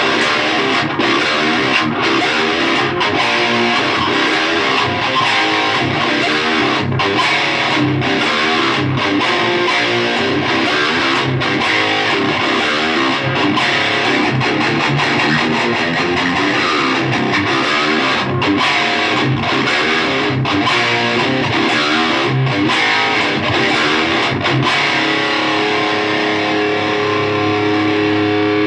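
Electric guitar with Seymour Duncan JB humbucker pickups played through a heavy-gain, distorted amp tone. A busy stretch of picked notes and chords ends in a chord held and left ringing for the last few seconds.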